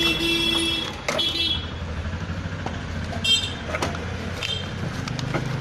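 Road traffic running with a steady low rumble, and a vehicle horn honking over the first second and a half, with shorter toots around three and four and a half seconds in.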